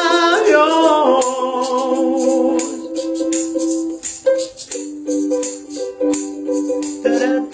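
Acoustic pop song with a shaker keeping a steady beat. A sung note ends about a second in, and the rest is instrumental.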